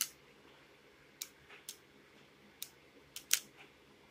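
Single-action airsoft revolver's hammer being drawn back to half-cock and its cylinder turned by hand: a string of sharp metal clicks, the loudest a little past three seconds in.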